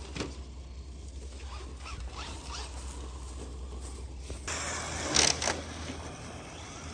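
Traxxas RC cars racing on loose dirt: faint motor whines rise and fall, then about four and a half seconds in a loud scraping hiss of tyres spraying sand and grit, loudest for about a second before fading.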